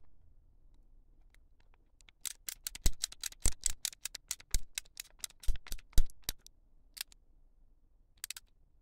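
Plastic model kit parts being clipped from the runners with hobby nippers: a quick run of sharp snips and clicks starting about two seconds in and lasting some four seconds, then a couple more near the end.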